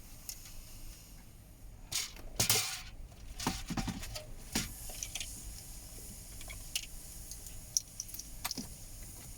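Clicks, taps and scraping of hard plastic as the head-unit surround frame is worked loose and pulled out of a Ford S-Max dashboard, loudest about two to three seconds in.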